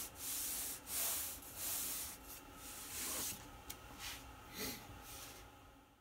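Hands rubbing and pressing a plywood workpiece down onto super-glued blue tape, about five swishing strokes in the first three seconds, then only a few faint small sounds.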